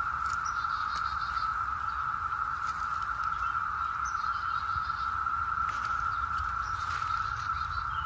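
Chorus of Brood X 17-year periodical cicadas: a steady, unbroken high-pitched drone that sounds like a UFO.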